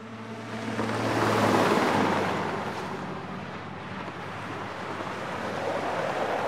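Opening sound effect of a TV channel ident: a swelling rush of noise that builds to its loudest about a second and a half in, then eases off and holds. A low steady drone runs under it for the first couple of seconds.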